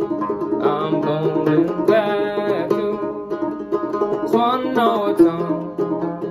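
A c.1867 Dobson banjo played solo: a steady run of plucked notes with the old instrument's hollow tone.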